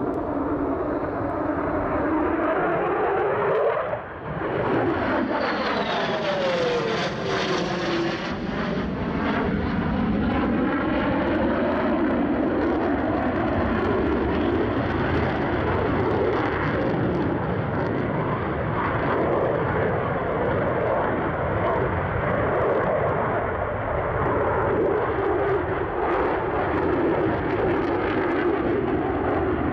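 F-35 Lightning II's F135 turbofan engine as the jet flies past. About four seconds in it passes close with a whine that falls in pitch and a sweeping, phasing whoosh, then steady jet engine noise continues.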